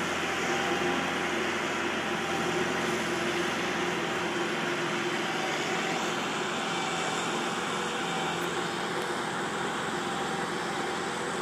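Steady engine drone of snow-hauling machinery running at constant speed, with a steady low hum.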